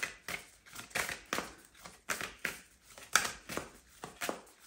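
Oracle cards being shuffled and handled by hand: a quick string of short, crisp rustles, about three a second.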